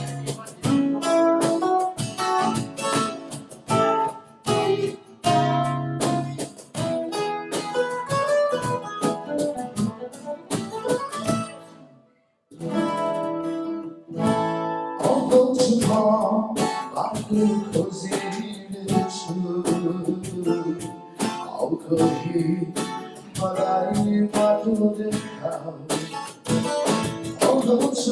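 Acoustic guitar strummed in a steady rhythm, playing an instrumental passage of a song. About twelve seconds in the sound cuts out for a moment, then the playing resumes.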